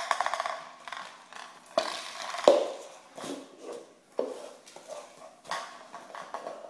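A small dog playing with a cup on a tiled floor, biting it and knocking and scraping it along: irregular clatters and scrapes, the loudest about two and a half seconds in.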